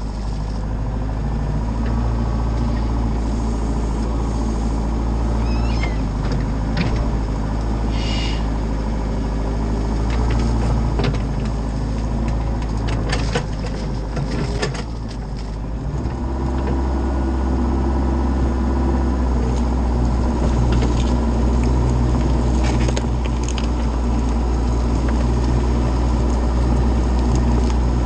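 Excavator's diesel engine running steadily under load while the hydraulics work the boom and bucket, digging a trench in wet mud, with scattered knocks and clanks from the bucket. The engine note shifts about halfway through.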